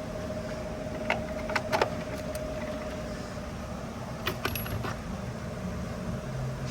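Metal sockets clinking as they are handled in a toolbox drawer: a few sharp clinks between one and two seconds in and another cluster about four and a half seconds in, over a steady hum.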